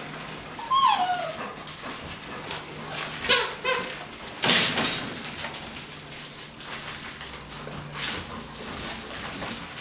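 Young puppies playing: a few short, high-pitched yips and whines, one sliding downward about half a second in and a cluster about three seconds in, amid scuffling.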